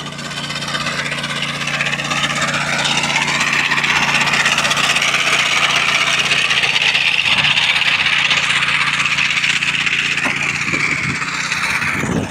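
Small petrol engine running steadily with a loud high-pitched buzz, getting louder over the first few seconds and cutting off suddenly near the end.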